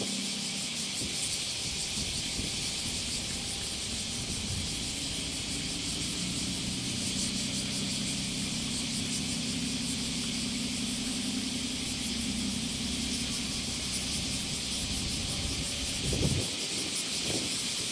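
JR Shikoku 2000-series diesel railcars idling at the platform, a steady low engine hum that swells briefly near the end, under a steady high hiss.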